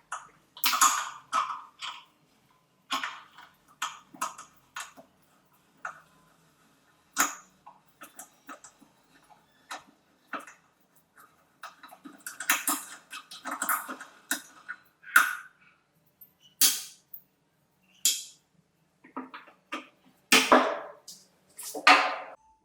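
Irregular knocks, clatters and short scraping strokes of hand work on metal parts, spaced unevenly with brief pauses between them.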